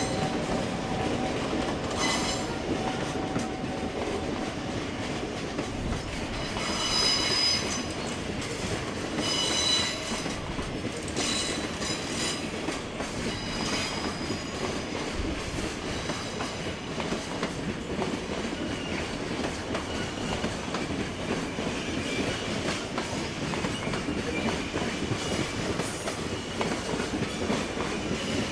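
Freight train pulling slowly out of a freight terminal, wheels clicking over rail joints, with high-pitched wheel squeals on curves or pointwork, strongest around 7 seconds and again from about 9 to 13 seconds in.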